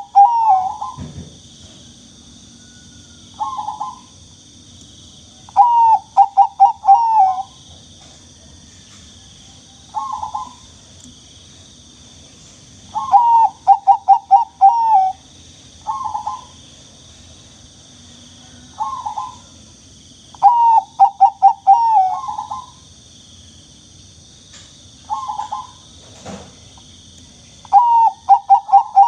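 Perkutut (zebra dove) cooing: phrases of four or five quick, clipped notes ending in a longer drawn-out coo, repeated about every seven seconds, with single short coos in between. A steady high hiss runs underneath.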